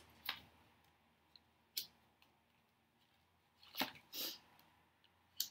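A deck of tarot cards being shuffled and handled in the hands: a few faint, short card snaps a second or two apart, with a brief soft slide of a card a little past the middle.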